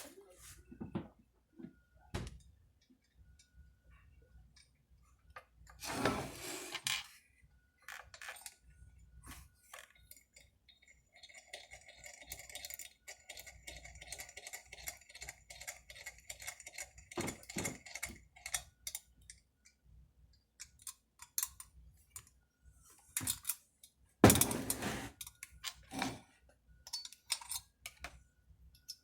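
Scattered clinks, clicks and knocks of small metal parts and hand tools being handled during chainsaw reassembly, with a stretch of steady rattling in the middle and a sharper knock near the end.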